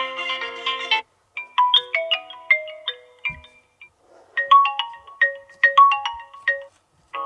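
Built-in ringtones of a Vivo Y33s phone playing one after another. One cuts off about a second in, followed by two short melodic phrases of quick high notes with brief gaps between them, and another tone begins right at the end.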